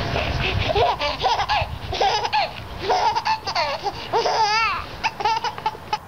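A small child laughing: a string of short, high-pitched laughs with a wavering giggle about halfway through.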